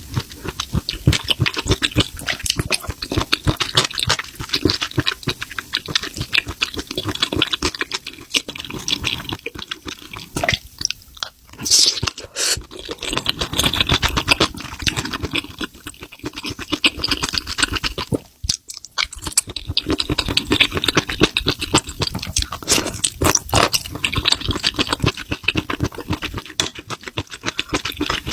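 Close-miked wet chewing and slurping of spicy mushrooms, a dense run of smacking clicks with brief pauses about ten and eighteen seconds in.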